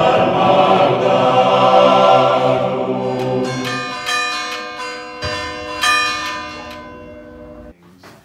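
Choir singing held chords, fading out about four seconds in as church bells ring several strokes that ring on and die away.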